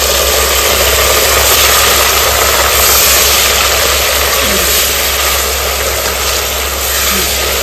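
Ground green masala paste frying in hot oil with browned onions in a pressure cooker: a loud, steady sizzle as the wet paste hits the oil, stirred with a spatula.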